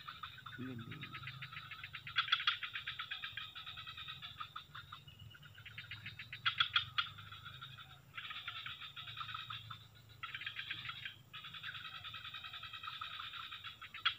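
Chorus of frogs trilling in fast pulses, breaking off briefly and starting again several times, with a faint steady low hum beneath.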